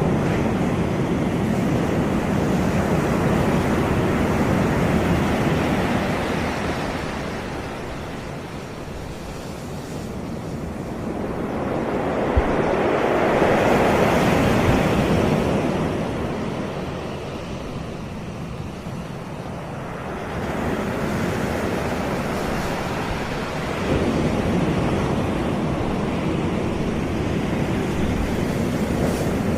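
Caribbean sea waves breaking and washing on a sandy beach, the surf swelling and ebbing in slow surges every several seconds, with wind on the microphone.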